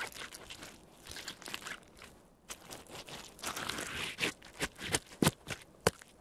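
Timberland boot soles stomping and grinding into mashed orange and banana: a run of uneven crunches, with two sharp strikes near the end.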